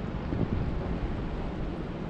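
Steady rain, a dense even hiss with a heavy low rumble, swelling briefly about half a second in.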